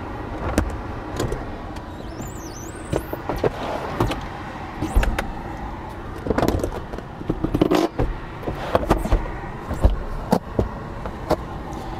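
Third-row split seats of a 2021 Toyota Sienna minivan being pulled by their release handles and folded down by hand into the floor well. A run of latch clicks, knocks and thuds as the seat sections drop.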